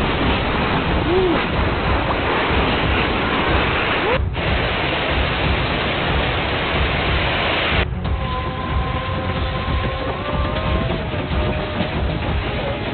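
Loud, steady rush of storm wind and heavy rain. It cuts off abruptly about four seconds in and again about eight seconds in. After the second cut, faint wavering tones run under the noise.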